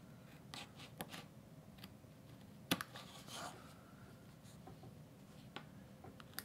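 Hobby knife with a No. 11 blade making small stop cuts in a basswood carving: faint, scattered clicks and short scratches of the blade in the wood, with one sharper click about two and a half seconds in.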